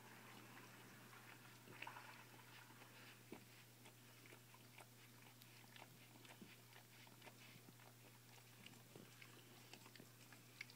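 Faint, scattered wet clicks of a dog licking, nibbling and biting at an orange.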